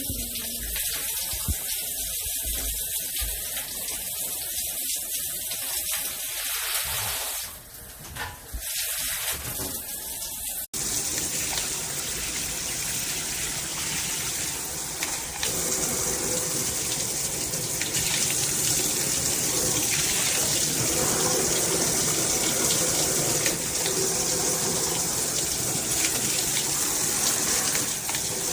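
Water spraying from a Moen Engage Magnetix handheld shower head, a steady rushing hiss. It dips for a moment about eight seconds in, changes abruptly about eleven seconds in, and then runs louder.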